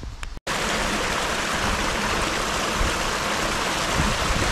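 Water running steadily over and between rocks, an even rushing sound that starts abruptly just under half a second in.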